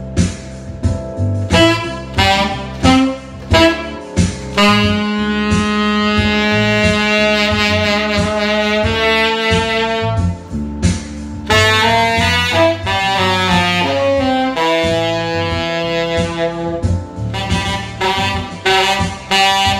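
Yamaha tenor saxophone, played with a Theo Wanne Durga 7* mouthpiece on a Yamaha Custom V1 neck, playing a jazz line over a backing track with a bass line. It starts with short detached notes, holds one long note for about four seconds, then plays quicker gliding runs and more short notes near the end.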